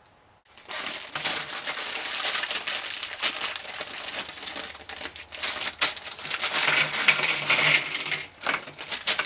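A thin plastic polybag crinkling and being torn open by hand, starting about half a second in, with small plastic LEGO pieces clattering out onto a table near the end.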